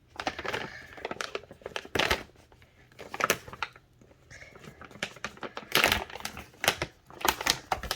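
Packaging of a crochet kit rustling and crinkling as the box is opened and its contents handled, in irregular crackles with the loudest about two, three and six seconds in and a quick run of them near the end.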